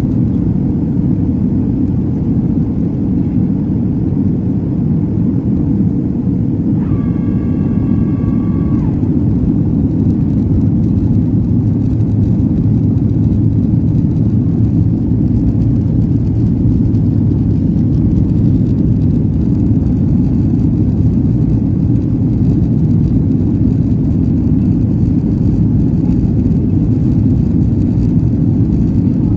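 Steady jet engine and airflow rumble heard inside the cabin of a jet airliner on approach, with the wing flaps extended. A short high tone sounds briefly about seven seconds in.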